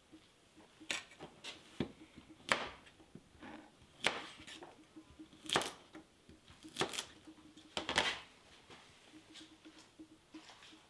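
Kitchen knife slicing through radishes and striking a wooden cutting board: a series of sharp, irregularly spaced knocks.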